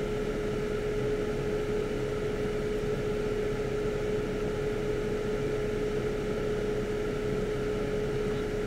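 Steady machine hum with one steady tone running through it, unchanging throughout.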